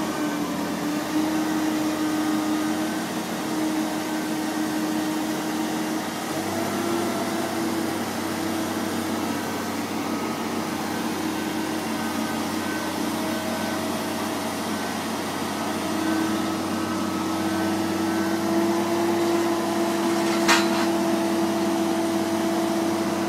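Engine of a boat travel lift running steadily under load. Its hum shifts slightly in pitch a couple of times, and there is one sharp click about twenty seconds in.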